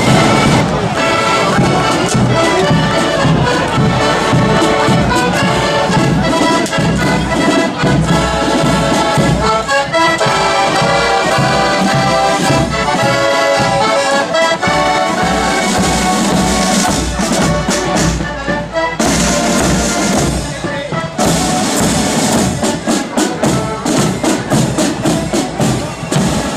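Marching accordion band playing a tune over side drums and a bass drum. There is a brief break a little past two-thirds of the way in, after which the drum beats stand out.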